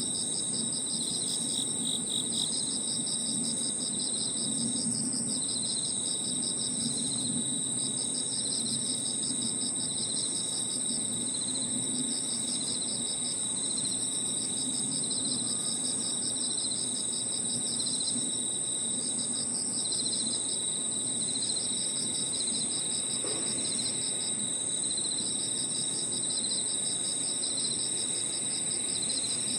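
Crickets and other insects chirring together: one continuous high-pitched trill, with lower pulsed trills that stop and start in bouts of a few seconds, over a low steady hum.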